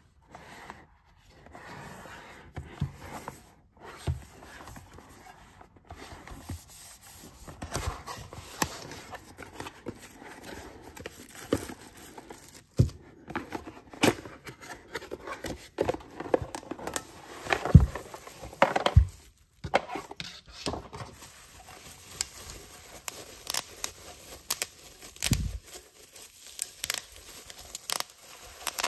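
Hands opening a paperboard tumbler box: the flaps rub, scrape and tear, with irregular sharp clicks and crinkles, loudest in the middle. Near the end there is rustling of the bubble wrap around the tumbler as it comes out.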